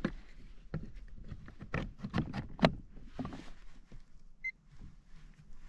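Irregular clicks and knocks of hands handling gear on a fishing kayak while a playing-up fish-finder sounder is being dealt with, the loudest knock a little after two and a half seconds in. A single short electronic beep sounds about four and a half seconds in.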